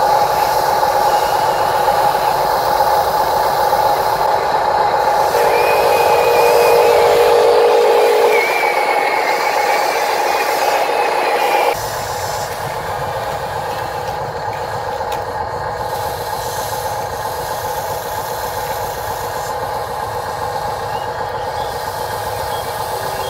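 Steady machine running noise with a constant mid-pitched whine from a radio-controlled excavator and dump truck at work. The level drops suddenly about twelve seconds in.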